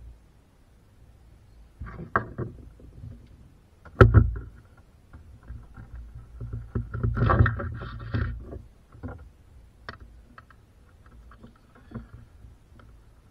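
Hand work with tools and parts: a sharp knock about four seconds in, then a couple of seconds of scraping and rattling, with scattered clicks.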